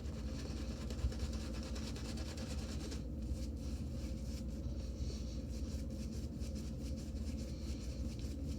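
Shaving brush working a wet, thin shaving-soap lather with quick, rhythmic brushing strokes. A higher hiss behind it drops away about three seconds in.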